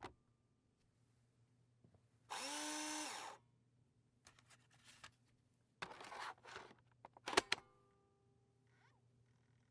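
Record scratch sound effects: a loud scratch lasting about a second, whose pitch rises and then holds, a rougher scratch about three seconds later, then a quick cluster of sharp clicks.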